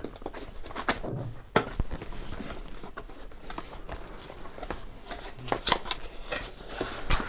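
Cardboard packaging being handled: a paper sleeve slid off a headphone box and the brown cardboard inner box opened. Rubbing and scraping with scattered sharp taps and clicks.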